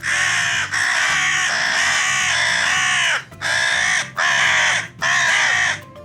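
Crow cawing: a run of several harsh caws, each dropping in pitch as it ends, with short breaks between them.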